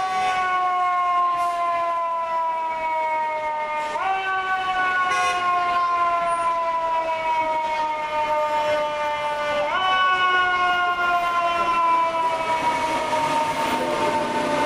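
FDNY fire engine's siren wailing. Its pitch sweeps up quickly three times, about four to six seconds apart, and glides slowly down in between.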